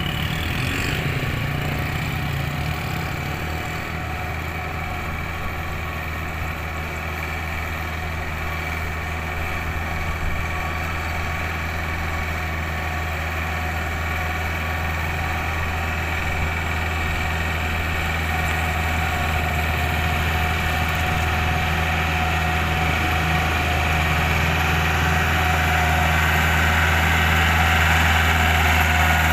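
Iseki compact tractor's diesel engine running steadily under load while it pulls a rotary tiller through a flooded rice paddy. The engine grows gradually louder toward the end as the tractor comes closer.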